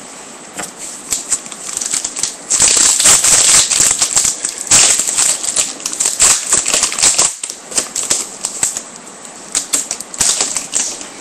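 Foil wrapper of a 2008 SPX football card pack crinkling and tearing open, then cards being handled, in a dense run of crackling clicks that is busiest in the middle and thins out near the end.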